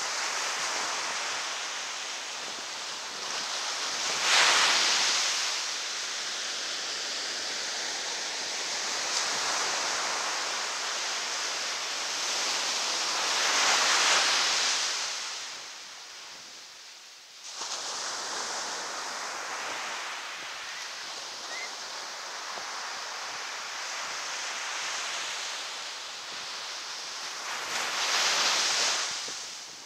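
Ocean surf washing onto a sandy beach: a continuous rush of breaking waves that swells louder three times, about four seconds in, around fourteen seconds and near the end.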